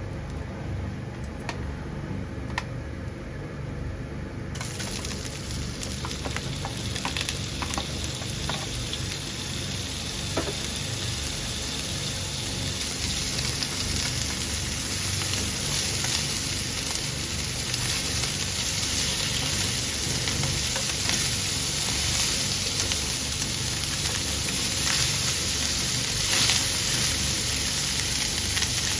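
Food frying in a pan, sizzling. The sizzle starts about four seconds in and grows louder, with scattered clicks from the pan and utensil.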